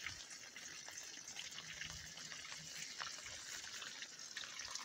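Chicken pieces frying in hot oil in a skillet: a faint, steady sizzle with scattered small pops.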